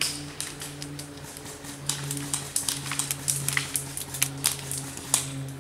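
Airsoft gunfire: irregular sharp clicks and snaps, several a second, loudest a little past the middle, over a steady low hum.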